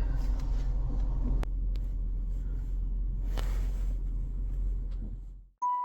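Steady low rumble of a car, heard from inside the cabin, with a single sharp click about a second and a half in. The rumble fades out near the end.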